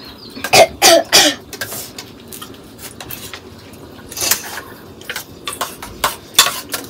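Metal spoons clicking and scraping on plates as several people eat, with a couple of short, loud throaty sounds like coughs about a second in.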